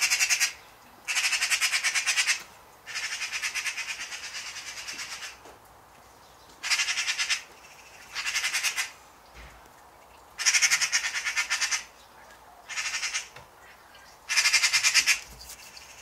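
Eurasian magpies giving their harsh rattling chatter in about eight separate bursts of one to two seconds, with one longer, quieter run a few seconds in. This is the magpie's alarm chatter, used when mobbing a cat.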